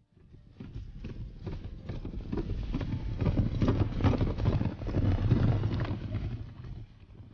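Several horses galloping on a hard bridge surface, a rapid run of hoofbeats. The hoofbeats build up about half a second in and fade away near the end.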